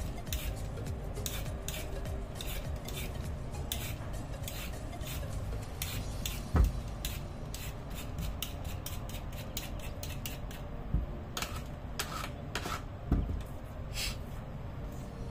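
Hand-held vegetable peeler scraping down a raw carrot in repeated quick strokes, shaving off the skin, one to two strokes a second. A few louder knocks against the wooden cutting board stand out, the loudest about six and a half seconds in.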